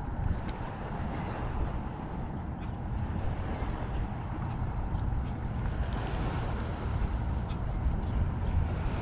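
Wind buffeting an action camera's microphone: a steady low rumble of noise.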